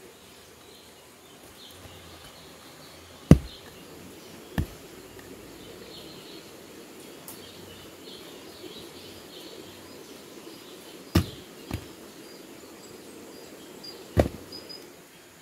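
Pieces of log tossed down onto the ground, landing with about five sharp wooden knocks, the first the loudest, the last two close together at the end. Faint chirping runs behind.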